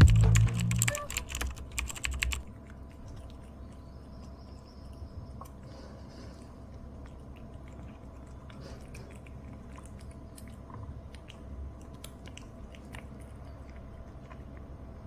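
Background music stops about two seconds in. Then there is soft, irregular crunching: a cat chewing a crunchy freeze-dried capelin (shishamo) treat.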